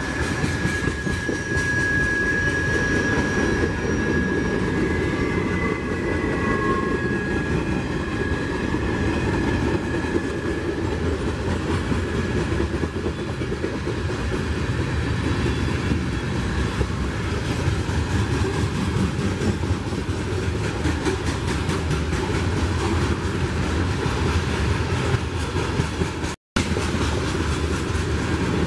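Freight train cars rolling past, steel wheels rumbling and clattering on the rails, with a thin high wheel squeal in the first several seconds that fades away.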